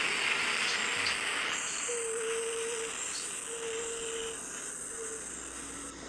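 Insects chirring steadily, louder in the first second and a half and then softer. In the second half a faint held tone sounds three times.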